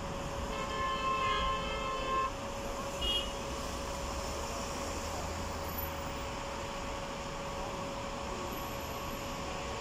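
A vehicle horn held for about two seconds, then a short second toot, over a steady background of traffic noise.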